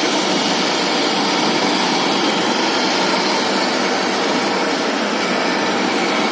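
Metal-working lathe running steadily, a continuous loud machine noise without breaks.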